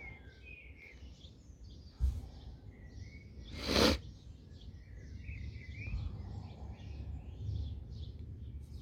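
A single short hiss of a hand trigger sprayer spritzing garlic-oil mix onto lily plants, about three and a half seconds in, with a soft knock just before it. Birds chirp throughout, and wind rumbles low on the microphone.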